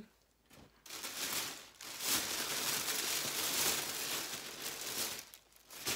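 Rustling and crinkling as newly bought clothes are handled, a dense noisy rustle that starts about a second in and stops about a second before the end.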